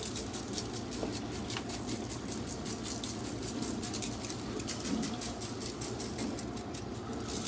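Dry barbecue rub shaken from a shaker bottle onto raw ribs: a fast, steady pattering rattle of granules through the shaker lid and onto the meat.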